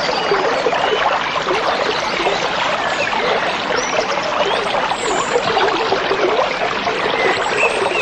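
A babbling stream, water bubbling and trickling steadily, with a few short bird chirps over it, about three seconds in, at five seconds and near the end.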